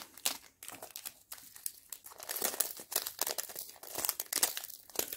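Small plastic bags crinkling and rustling with irregular small clicks as they are handled, typical of sorting through bags of diamond-painting drills.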